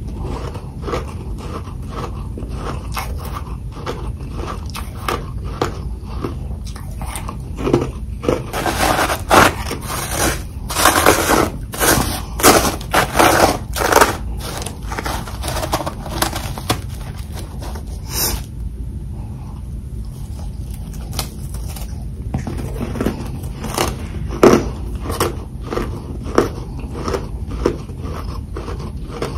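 Heavy freezer frost being bitten and chewed: a continuous run of crisp crunches, loudest and densest in a burst about a third of the way through, with another loud bite later on.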